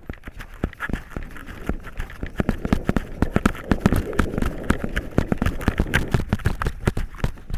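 Running footsteps with gear rattling: a fast, irregular stream of thuds and clicks that grows louder over the first couple of seconds.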